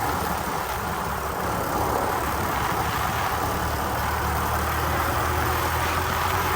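Motorcycle engine running steadily while riding, with steady road and wind noise.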